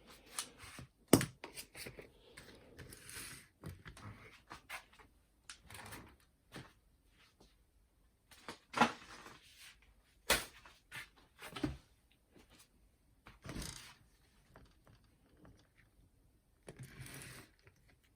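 Scattered, irregular clicks, taps and knocks of small plastic and metal parts of a boombox's cassette mechanism being handled and fitted back together, with faint rustling between them.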